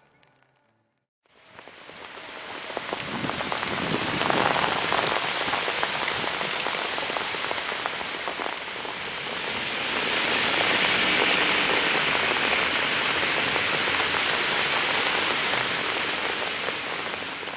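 Heavy rain falling steadily, a dense patter of drops on a surface. It fades in after about a second of silence.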